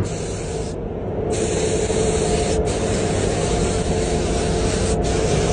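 Paint spray gun hissing in several long passes, each starting and cutting off sharply, with a gap of about half a second near the first second.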